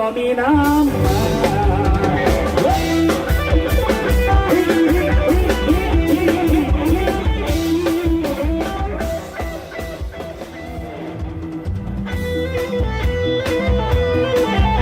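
Thai parade-truck band playing upbeat instrumental music: a bending lead melody over a drum kit. It drops quieter just past the middle and builds back up near the end.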